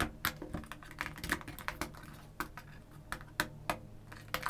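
Irregular light clicks and taps of plastic neckband earphones and their cable being handled and lifted out of a cardboard box tray.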